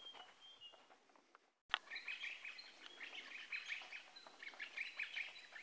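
Faint high whistled bird notes, then a sudden click about a second and a half in, after which a crimson rosella gives rapid, repeated high chattering calls during its courtship display.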